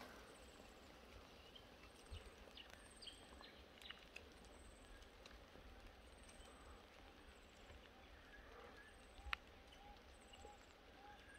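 Near silence with faint birds calling: thin, high, falling chirps about once a second, and from about nine seconds in a run of soft repeated notes about three a second. A single sharp click comes a little after nine seconds.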